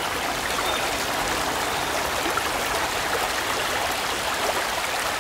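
Shallow river running over rocks and stones in small riffles: a steady babble of flowing water.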